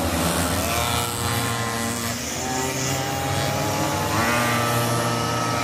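Several small two-stroke Chinese minimoto (pocket bike) engines racing together, a high buzzing mix of exhausts. Their pitch climbs as riders accelerate, about two seconds in and again about four seconds in.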